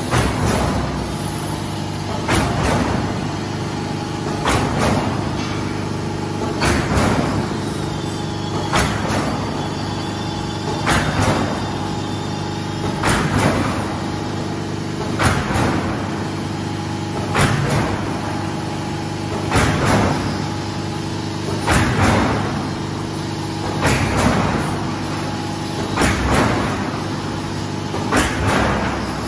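Silo corrugated sheet roll forming machine running, a steady mechanical hum broken by a heavy clunk about every two seconds as it cycles.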